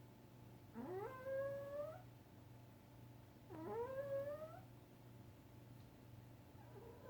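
A sleeping cat snoring: three snores about three seconds apart, each a pitched note about a second long that rises and then levels off, the last one starting near the end. The owner wonders whether this snoring could be a sign of congestive heart failure.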